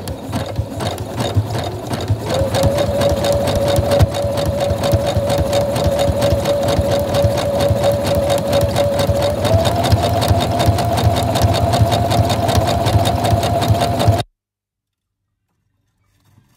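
Sewing machine stitching at speed: rapid, even needle strokes over a steady motor whine that rises a little in pitch about two-thirds of the way through, then cuts off suddenly near the end.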